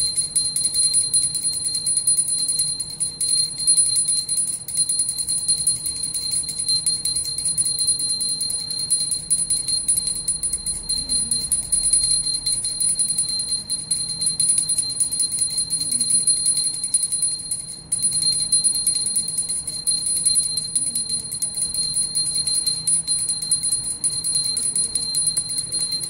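Puja hand bell rung continuously with rapid clapper strikes during worship, a steady high ringing with a brief break about 18 seconds in.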